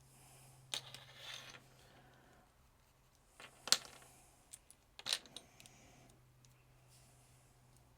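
Faint clicks and taps of small plastic action-figure parts being handled and set down on a work surface, the sharpest about three and a half seconds in and another about five seconds in, over a low steady hum.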